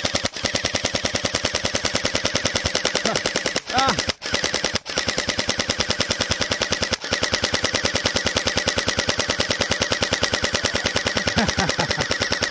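Electric gel blaster firing on full auto: a rapid, even stream of shots in long bursts with only a few brief breaks.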